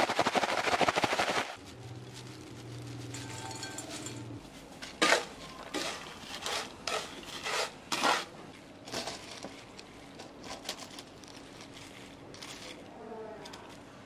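Kitchen cooking sounds. A dense crackle runs for about the first second and a half, then a low hum. From about five seconds in comes a run of sharp scrapes and clatters, roughly two a second, as a wooden spatula stirs crisp shredded potato in a frying pan.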